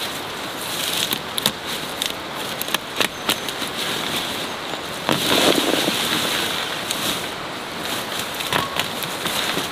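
Rustling and crackling of ginger stalks and leaves being pulled up and gathered by hand, with many small snaps and a louder rustle about five seconds in.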